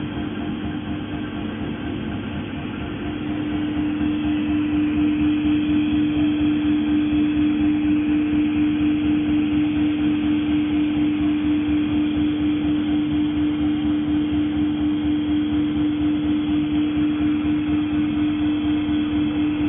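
Roll seam welding machine running on wire mesh: a steady electrical hum at one pitch. About four seconds in it grows louder and pulses evenly, about three or four pulses a second, as the copper wheel electrode seam-welds the mesh.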